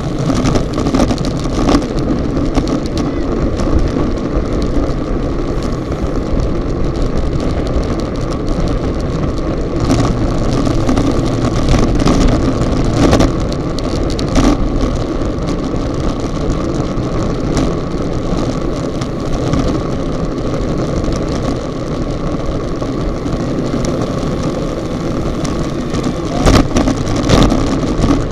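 Wind noise rushing over a bike-mounted action camera's microphone at racing speed, with road and tyre rumble and a few sharp knocks and rattles from the shaking camera.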